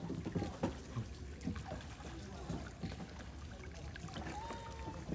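A small wooden boat moving through floodwater: water splashing and lapping around it, with irregular small knocks on the hull.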